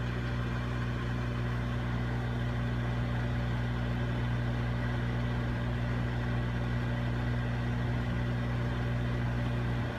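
Microwave oven running with a bar of soap inside: a steady low electrical hum with its fan.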